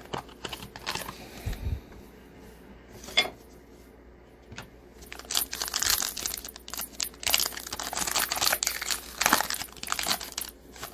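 A trading card pack's plastic wrapper is torn open and crinkled in the hands. There are a few light clicks first, then a dense run of crinkling about halfway through.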